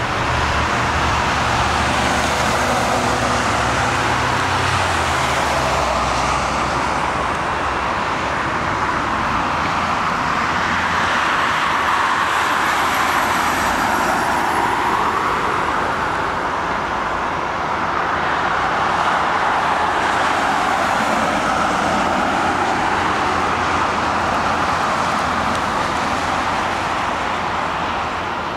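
Steady outdoor vehicle traffic noise, swelling and fading every few seconds as vehicles pass.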